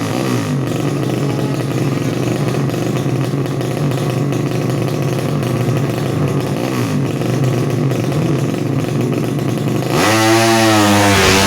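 Four-stroke 200cc drag-racing underbone motorcycle engines running at high revs. About ten seconds in, a louder engine close by is revved up and down quickly several times.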